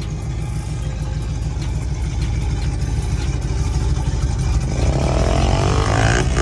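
Lifted pickup truck's engine and exhaust rumbling low as the truck rolls slowly past, growing louder. Near the end a pitched note glides up and down over the rumble.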